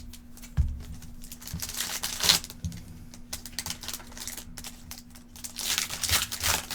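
Foil trading-card pack wrapper crinkling and tearing open, with cards being handled and shuffled, in irregular rustles and clicks that swell about two seconds in and again near the end.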